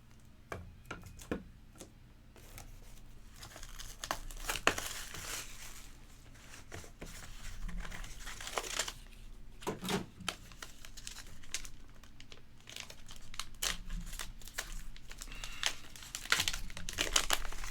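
Packaging being opened by hand: plastic wrap crinkling and tearing, with scattered light clicks and taps.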